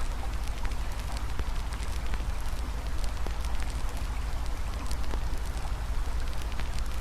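Campfire crackling with frequent small sharp pops over a steady rush of flowing river water.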